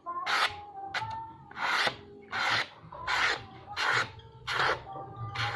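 A sheet of paper being slashed again and again with a 60 cm spring-steel bulu landak blade: a sharp swish-and-slice about eight times, roughly one every 0.7 seconds. The blade cuts through the hand-held sheet as a test of its edge.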